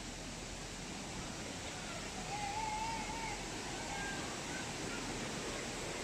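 Steady rushing of a waterfall and stream. A faint wavering call rises above it about two seconds in.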